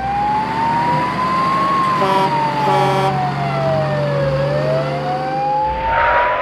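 A slow wailing siren, its pitch rising for about two seconds, falling for about two and a half, then rising again, over a steady low hum that stops shortly before the end.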